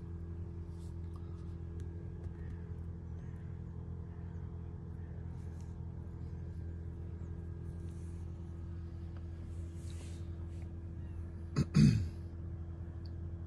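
A steady low hum, with faint small clicks as bait beads and tackle are handled. A short, loud knock comes about twelve seconds in.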